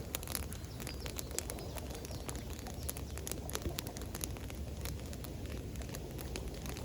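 Campfire crackling: frequent irregular sharp pops and snaps of burning wood over a steady low rushing noise.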